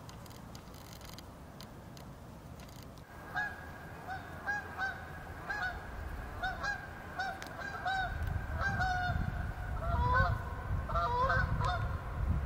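Canada goose honking over and over, about two calls a second, starting about three seconds in. A low rumble sits underneath from about eight seconds in.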